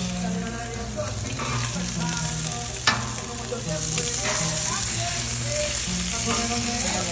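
Thin slices of meat frying on a hot flat-top griddle, a steady sizzle that gets brighter from about four seconds in. One sharp tap sounds a little before the three-second mark.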